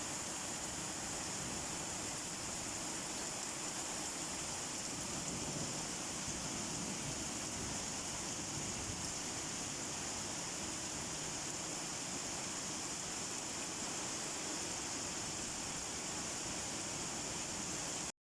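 Steady rain falling, an even hiss with no single drops standing out. It breaks off into silence for a fraction of a second near the end.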